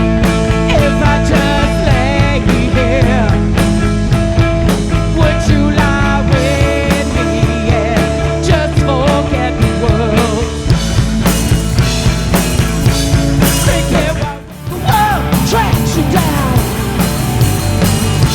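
Live rock band playing, with drums, electric guitars and a bending lead melody over sustained chords. The music drops out briefly about fourteen seconds in, then the band comes back in.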